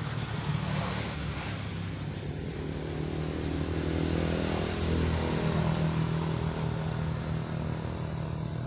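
A motor engine running steadily, its pitch drifting slightly, louder in the middle and easing off near the end, over the constant rush of fast-flowing water in a narrow stone-lined ditch.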